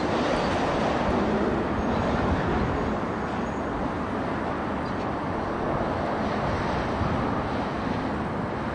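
Steady outdoor rumble and hiss with no separate knocks, tones or voices.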